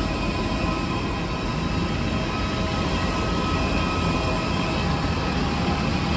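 Airliner noise on the apron: a steady, loud rush with several steady high whining tones over it.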